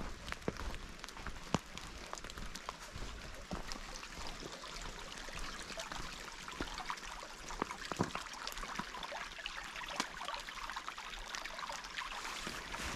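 Creek water running steadily, with scattered light clicks of footsteps along the bank.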